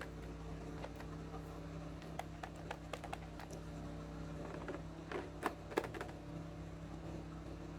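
Small plastic toy pieces handled, giving scattered light clicks and taps, more of them about five to six seconds in, over a steady low hum.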